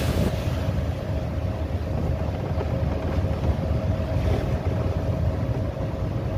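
Boat at sea in rough weather: a low, steady engine drone with a constant hum, under wind buffeting the microphone and the rush of waves.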